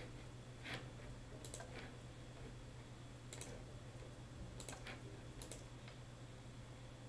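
Faint, scattered clicks of a computer mouse, singly and in quick pairs, over a low steady hum.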